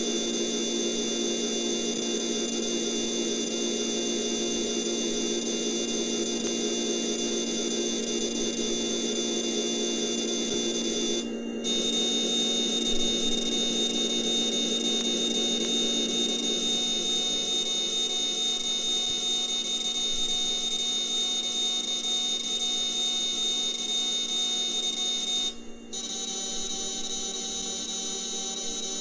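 CNC lathe simulator's machining sound effect: a steady spindle-and-cutting whine of many high tones, during a simulated G71 roughing pass on a turned bar. It dips briefly about 11 seconds in and again near 26 seconds, and the tone changes after each dip.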